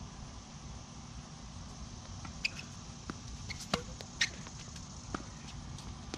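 Tennis rally on a hard court: sharp pops of racket strikes and ball bounces, starting about two and a half seconds in and coming every half-second to second, the loudest around the middle, over a steady low background noise.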